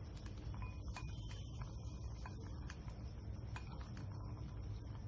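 Metal spoon stirring dry-roasted walnut halves with spice mix in a bowl: faint, scattered clicks and scrapes of the spoon and nuts against the bowl, over a steady low hum.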